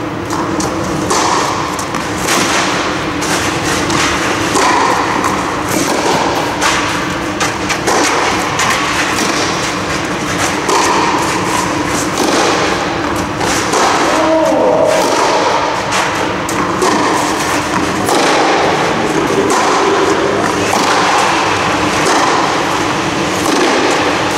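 Tennis ball struck by rackets and bouncing on a clay court in a long rally: a string of sharp hits and bounces, over a steady background hum.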